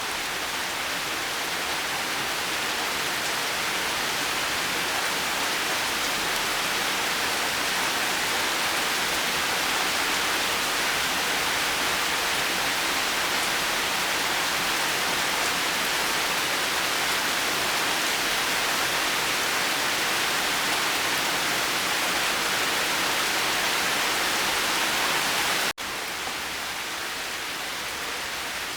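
Steady, even hiss of heavy rain falling. About 26 seconds in it cuts out for an instant and resumes slightly quieter, an edit splice in the looped recording.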